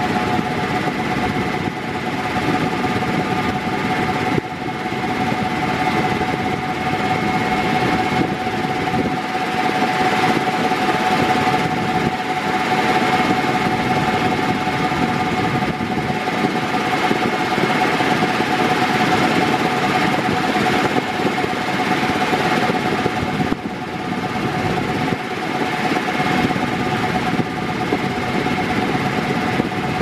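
Mondial Turbo Force 8, 50 cm, eight-blade, 150 W electric fan running at top speed: a steady rush of air with a constant whine underneath.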